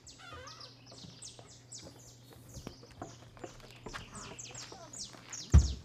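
Many birds chirping outdoors: a quick, constant run of short, falling chirps over a low steady hum. A single dull thump about five and a half seconds in is the loudest sound.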